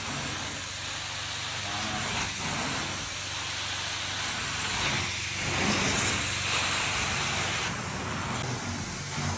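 Carpet-cleaning equipment hissing steadily over a low hum, the sound of spraying and vacuum extraction in carpet cleaning.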